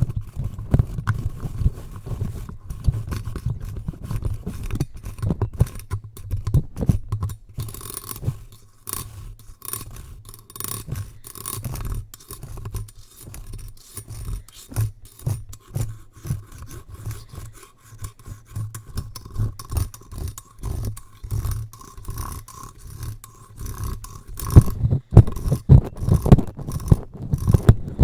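Scraping and rubbing directly on a microphone, with irregular clicks and low handling thumps. The knocks get louder near the end.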